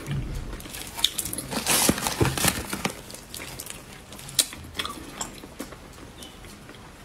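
Close-miked eating sounds: wet, sticky clicks, smacks and squelches from chewing and from gloved hands pulling at a sauce-soaked piece of braised pork. The sounds come thickest about two seconds in and thin out near the end.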